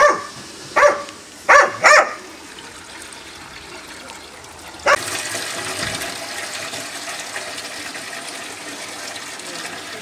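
A dog barks four times in the first two seconds. About five seconds in, a steady splash of water starts: stream water, pumped up through a hose, pouring into a rusty steel barrel.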